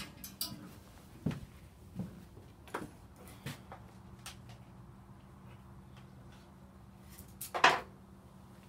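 Scattered knocks and clatter of things being handled, over a faint steady hum, with one louder clunk near the end.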